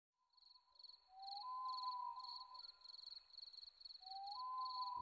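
Faint crickets chirping about twice a second, with wolves howling: long, slightly rising howls near the start and again near the end.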